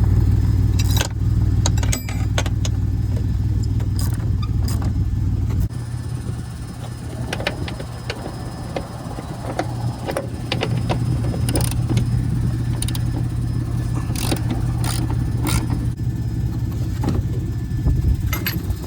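A vehicle engine running steadily, with light clicks and rattles over it; the engine note changes abruptly twice.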